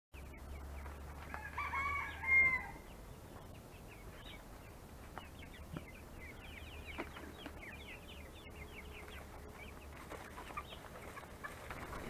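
Chickens calling while they are being fed: a flock of brown hens making many short, quick calls. About two seconds in there is one longer, louder call, typical of a rooster crowing.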